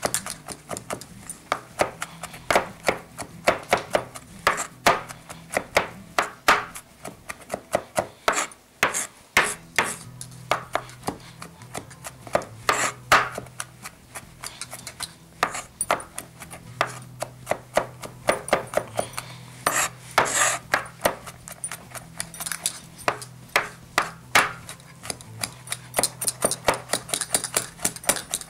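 Knife chopping garlic on a cutting board: a long run of quick, uneven taps of the blade against the board.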